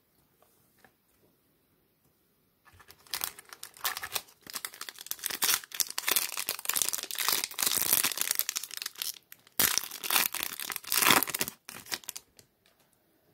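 A baseball card pack's wrapper being torn open and crinkled by hand: quiet at first, then dense crackling that starts about three seconds in and runs on for most of the rest, with a brief break near the end.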